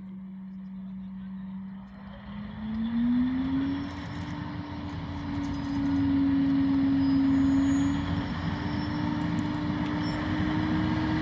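Diesel shunting locomotive's engine idling, then rising in pitch about two to three seconds in and running steady at higher revs, louder again about six seconds in.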